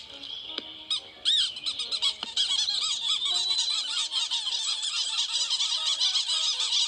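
Many small birds chattering over one another in quick, high, arching calls. The calls come in scattered bursts at first and run together into a dense, unbroken chatter from about two and a half seconds in.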